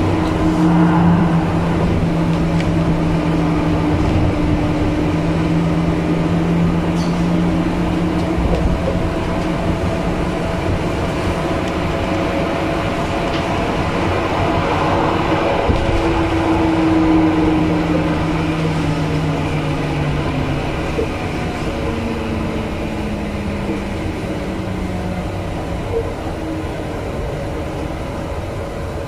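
1977 Cologne Stadtbahn light-rail car running, with wheel and track rumble and a steady motor hum. In the second half the hum falls in pitch and the noise eases, as the tram slows.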